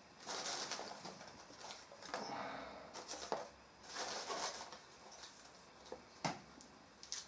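Intermittent rustling and scuffing noises, each about a second long, with a couple of short sharp knocks.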